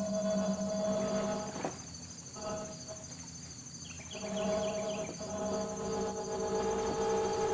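Battery-powered synthesizer playing an improvised drone: a buzzy held tone that stops after nearly two seconds, a short note, then from about four seconds in a longer run of held notes whose pitches shift. A steady high trill runs underneath throughout.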